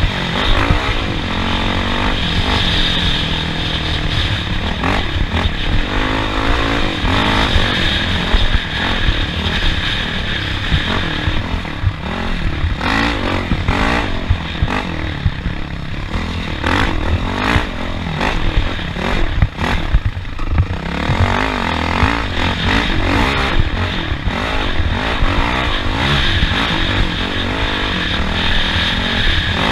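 Engine of an off-road racing vehicle running hard, its pitch rising and falling again and again as it revs up and eases off, with rattling and knocking clatter over the top.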